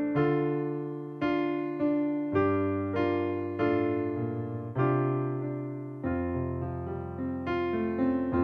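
Solo piano music: slow chords struck one after another, each left to ring and fade.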